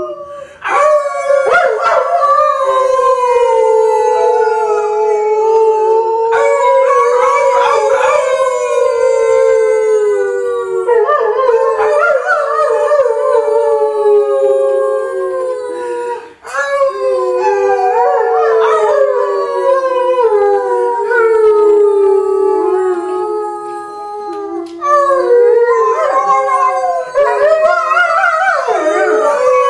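A dog howling in long drawn-out howls with other voices overlapping, each howl sliding slowly down in pitch. The howling breaks off briefly about sixteen seconds in and again near twenty-five seconds.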